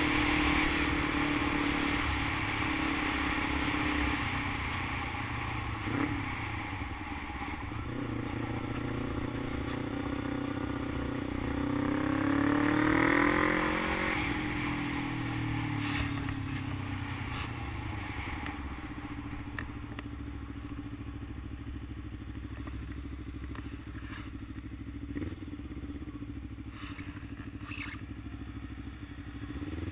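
Motorcycle engine running while riding. Its pitch climbs as it accelerates a little before halfway, then falls away as it slows. It settles to a quieter, steady running near the end as the bike comes to a stop.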